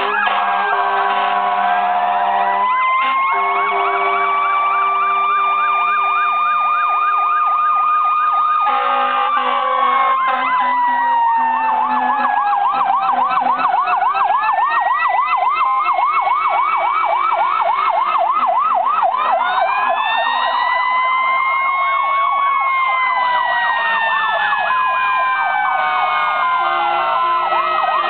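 Several fire apparatus sirens sounding at once, overlapping slow rising-and-falling wails with fast warbling yelps. Steady horn tones sound near the start.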